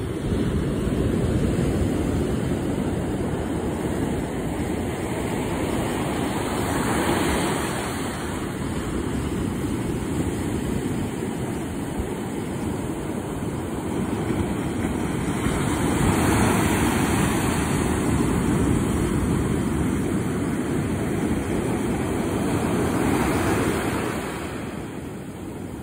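Ocean surf breaking and washing up a sandy beach, swelling in a few slow surges, with wind rumbling on the microphone.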